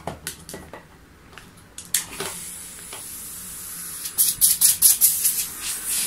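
Hermetic refrigerator compressor rigged as an air pump, running with a low hum just after being switched on, while air hisses out of its hose from about two seconds in. Sharp clicks and knocks of the hose and gauge being handled come throughout, with a quick run of them near the end.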